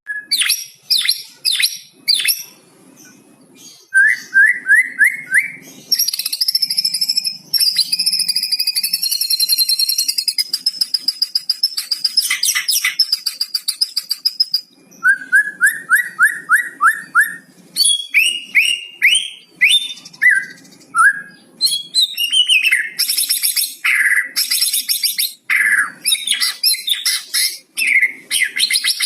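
White-rumped shama (murai batu) singing a long, varied song: quick runs of short rising notes, rapid trills and high whistles, including phrases learned from the cucak cungkok.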